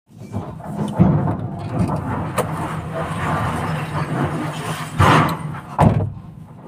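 SANY SY225 excavator working in broken rock: its diesel engine runs steadily while the steel bucket knocks and scrapes on stone several times, the loudest knocks a little past halfway and just before the end.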